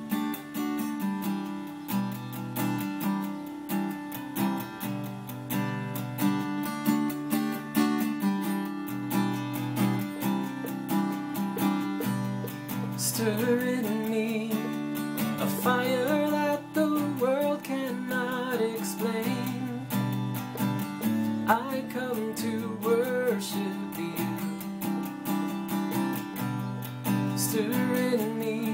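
Acoustic guitar strummed in a steady chord pattern, with a singing voice joining about halfway through.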